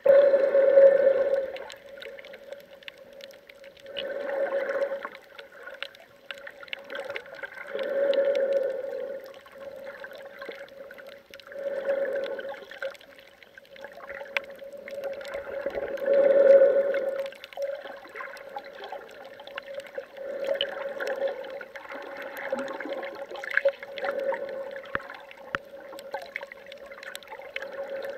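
Muffled underwater sound heard through a submerged camera: rushing swells that rise and fall about every four seconds, over a steady low hum.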